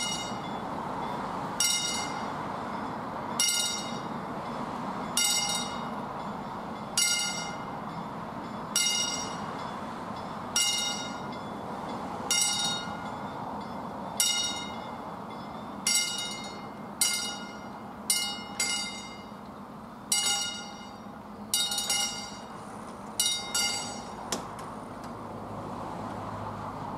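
Swedish level-crossing warning bell striking slowly, about once every 1.8 seconds, each strike ringing out, to warn of an approaching train while the barriers lower. About two-thirds of the way through, the strikes start coming in uneven pairs, and the ringing stops a few seconds before the end, once the barriers are down.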